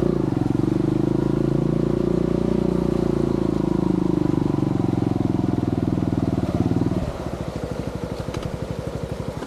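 Yamaha TY-S125F trials motorcycle's single-cylinder engine running at a steady speed, then dropping to a pulsing idle about seven seconds in.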